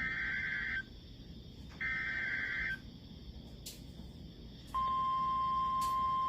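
Two short warbling data bursts of an Emergency Alert System SAME header, followed a couple of seconds later by the steady 1050 Hz NOAA Weather Radio warning alarm tone, which signals that a warning message is about to be read.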